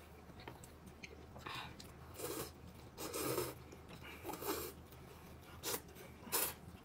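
A person eating, chewing and biting food with close mouth sounds. Five louder chews or smacks come about a second apart.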